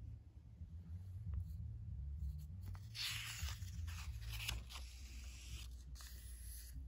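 A page of an old comic book being turned by hand: a dry paper rustle starting about three seconds in and going on in a few pulses until near the end.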